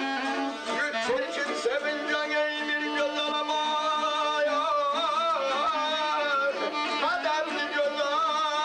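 Azerbaijani ashiq music: a balaban (double-reed pipe) plays a sustained, wavering, ornamented melody over a plucked saz.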